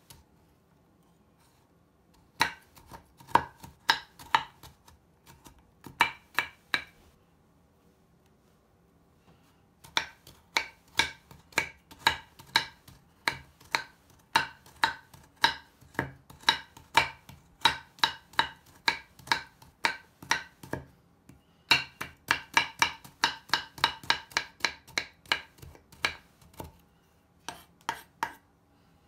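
Kitchen knife chopping a crumbly solid bubble bar on a wooden cutting board, the blade striking the board through the broken pieces. Sharp chops come in runs at about two a second, with a pause of a few seconds before the longest run.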